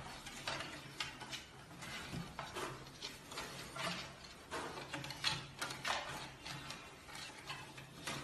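Wooden crib bars clicking and knocking irregularly, several times a second, as a giant panda cub climbs and grips them, over a faint low hum.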